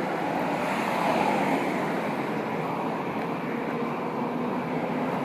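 Sprinkler truck going by, a steady rushing noise that swells slightly about a second in.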